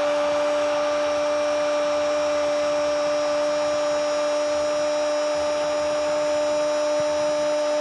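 A football commentator's long, drawn-out shout of 'gol', held on one steady note for many seconds, over the roar of a stadium crowd.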